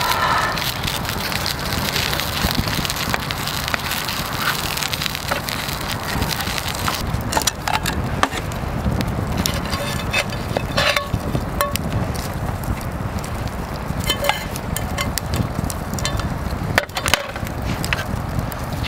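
Wood campfire burning and crackling under the cooking pots, with a sharp pop every few seconds.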